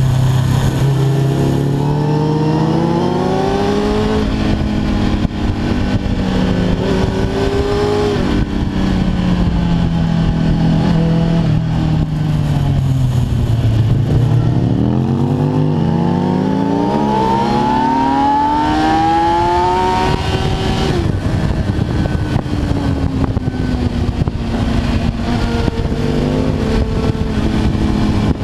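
Kawasaki ZX-10R's inline-four engine heard from on board under hard riding, its pitch rising and falling with the throttle, climbing steeply from about halfway with a brief break for a gear change, then easing off and climbing again near the end, over a steady rush of wind noise.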